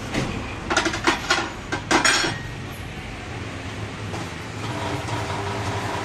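Metal clanks and scrapes as a motorcycle tyre is levered over its rim on a tyre-changer machine with a steel tyre lever: a quick run of knocks in the first two seconds, then a steady low hum underneath.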